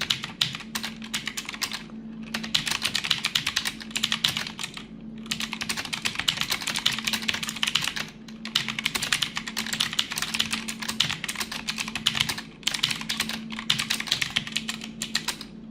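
Fast, continuous typing on a Rexus Legionare MX9 TKL mechanical keyboard fitted with a mix of clicky blue switches and heavier-sounding brown switches, with short pauses about every three seconds.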